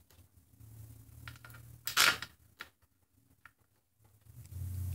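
Steel transmission case bolts clinking as they are handled and set into the aluminium case, with scattered light clicks and one louder clink about two seconds in. A low hum comes in near the end.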